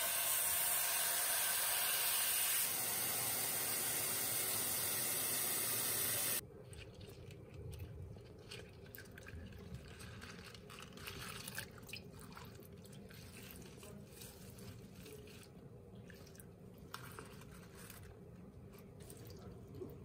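Kitchen tap running steadily into a bowl of salad greens, stopping abruptly about six seconds in. After that come soft, irregular splashes and rustles as a hand swishes the leaves in the water.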